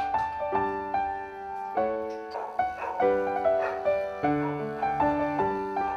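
Background piano music: a gentle melody of notes struck at an even pace, a new note about every half second.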